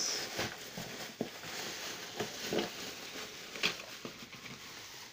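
Plastic bubble-wrap packing crinkling and rustling as it is handled and pulled from a cardboard box, with many small crackles and clicks that thin out toward the end.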